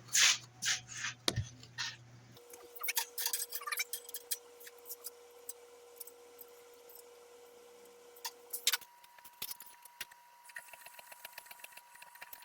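Light metallic clinks, clicks and rattles from a band sawmill blade being handled and set up for sharpening, loudest in the first two seconds, over a faint steady shop hum.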